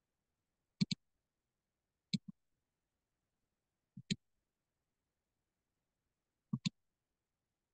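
Computer mouse clicking: four quick pairs of clicks a second or two apart.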